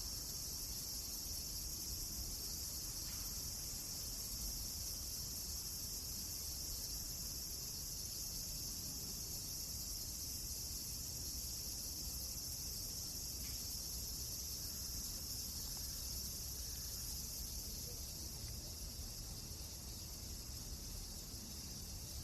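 Steady high-pitched chorus of crickets, with a couple of faint ticks.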